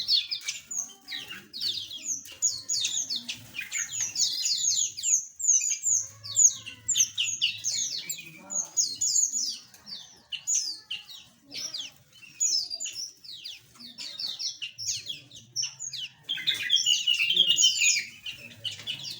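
A flock of small aviary birds chirping together, many quick, high, downward-sweeping chirps overlapping without pause, growing denser about three-quarters of the way through.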